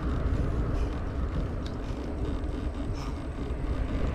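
Steady, fluttering low rumble of wind and road noise on a handlebar-mounted camera's microphone while riding a road bicycle, with a couple of faint clicks partway through.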